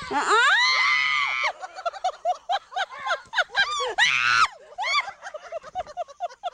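A young child screaming in fright while being chased. A loud scream lasts about a second and a half, then comes a long run of short, rapid yelps, broken by another loud scream about four seconds in.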